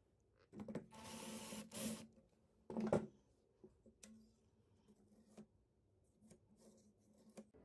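Cordless drill driving a screw into a metal drawer slide, running for about a second and a half, then a brief louder burst about three seconds in. Light clicks and taps of the drawer slide being handled follow.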